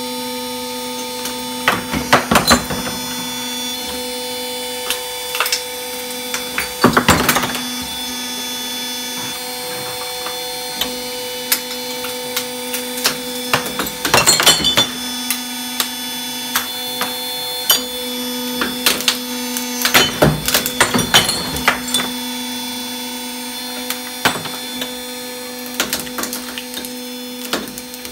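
A powered gun-crushing machine with jaws runs with a steady electric hum. Several times it gives out a burst of loud cracking and crunching as metal barrels and wooden stocks of surrendered firearms are fed in and broken up. Smaller knocks and rattles of the pieces come between the bursts.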